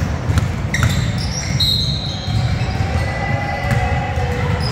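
Basketball bouncing on a hardwood gym floor with a few sharp knocks, and sneakers squeaking in short high squeals, strongest about a third of the way in, over a steady low rumble.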